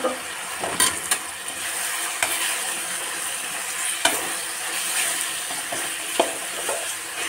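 Chopped vegetables sizzling in hot oil in a stainless-steel kadhai as they are stir-fried with a perforated metal spoon. The spoon scrapes and clinks against the pan now and then.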